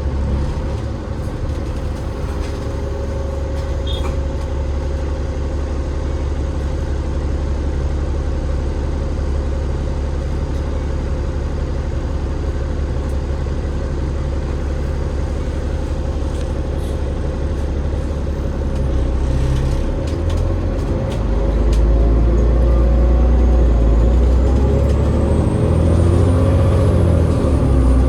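Alexander Dennis Enviro500 MMC double-decker bus with a Cummins ISL8.9 diesel and ZF EcoLife automatic gearbox, running with a steady low engine drone that grows louder about twenty seconds in. A faint high whine rises near the end.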